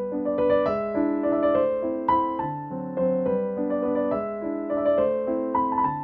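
Background music: a gentle piano melody, notes struck one after another in a steady, calm flow.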